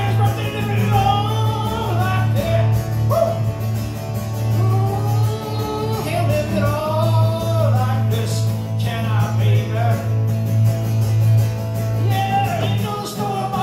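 Live solo performance: a man singing over his own strummed acoustic guitar, the voice rising and falling in phrases with short breaks.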